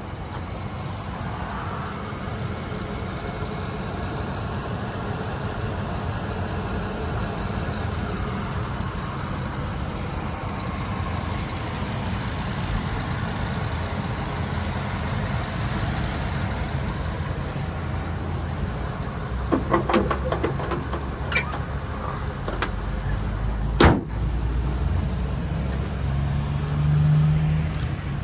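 The Ford E-450 chassis' 6.8-litre gas V10 idling steadily under the open hood. A few clicks and rattles come about two-thirds of the way through, then one loud slam as the hood is shut.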